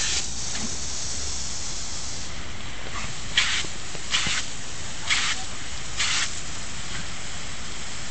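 Water jetting from an open fire hydrant's side outlet, a steady hiss, broken by four short louder splashes about a second apart as a dog bites at the jet.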